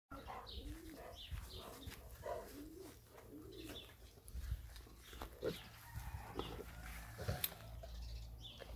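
Faint soft animal calls in short phrases that rise and fall, mostly in the first few seconds, with scattered light clicks and a low rumble underneath.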